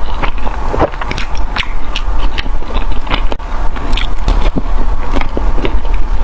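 Eating sounds: rapid crunchy bites and chewing clicks, loud and close, over a steady low rumble.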